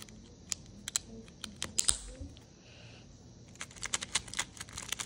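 Plastic clicks and clacks of an X-Man Tornado V3 speedcube being handled: a few scattered clicks, then a quick run of clacking layer turns from about three and a half seconds in.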